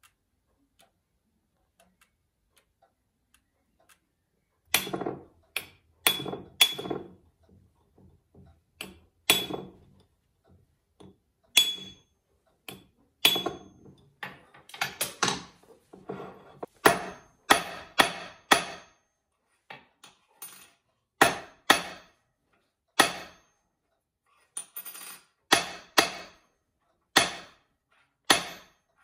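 Small hammer striking a metal cylinder used as a stake: sharp, ringing metallic blows at uneven intervals, some in quick groups, beginning about five seconds in. Before the blows there is only faint, regular ticking.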